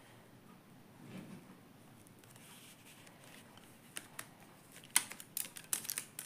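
A bundle of embroidery floss skeins being handled and wrapped with a small elastic band: faint rustling at first, then a quick run of sharp clicks and snaps in the last two seconds.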